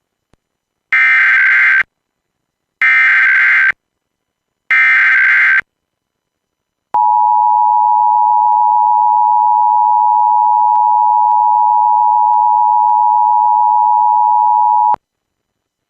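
Emergency Alert System header: three short bursts of screeching SAME digital data tones, each just under a second long, then the steady two-tone EAS attention signal held for about eight seconds before cutting off. This is the opening of a Blue Alert broadcast.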